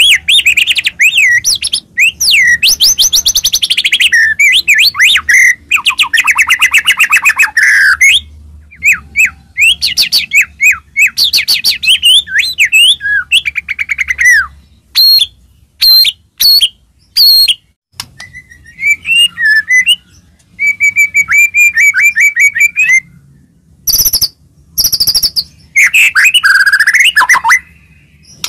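White-rumped shama (murai batu) singing loudly in full 'gacor' song: a varied run of clear whistles, fast rattling trills and sharp chattering notes, phrase after phrase with short pauses between.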